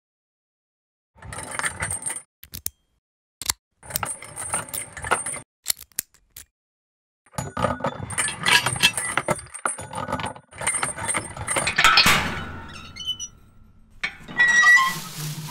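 Metal chain rattling and clinking against a padlocked gate in several separate bursts, then a loud metallic clank with a short ringing tail about twelve seconds in, and another rattling metal clatter with a ring near the end as the metal gate is pulled open.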